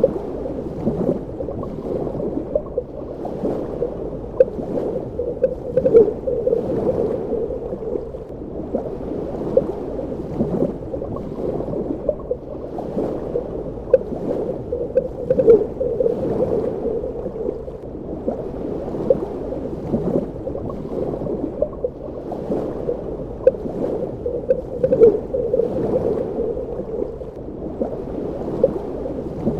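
Underwater ambience: a muffled, steady water rush with frequent small bubbling pops and gurgles.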